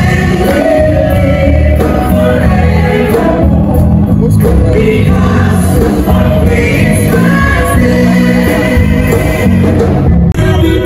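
A mixed choir singing a gospel song into microphones, amplified through a large church hall's sound system.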